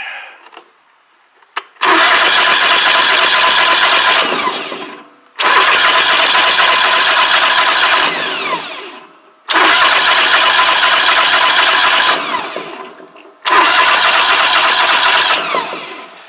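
Woodmizer LT15 Go sawmill's gasoline engine being cranked four times, each try about three seconds long and winding down at the end, without catching. The engine has not been started for a few months.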